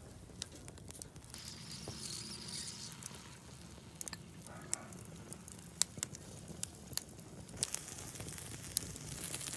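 Wood fire crackling under a large sea snail grilling in its shell on a wire grate: scattered sharp pops and clicks over a low hiss, with the sizzling hiss swelling near the end.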